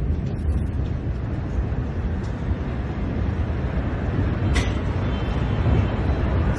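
Floodwater rushing through a street in a steady low rumble, with two brief clicks.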